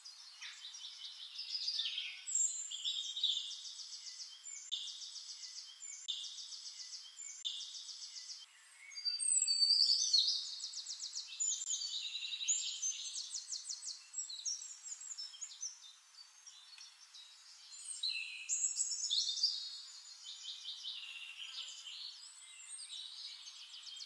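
Birds chirping and singing in high-pitched, repeated trilling phrases that come and go, with short quiet gaps between them.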